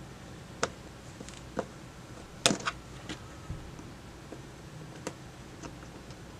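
Scattered small clicks and taps of hand tools working at a tiny cartridge fuse to open it, the loudest a quick double click about two and a half seconds in, over a faint steady low hum.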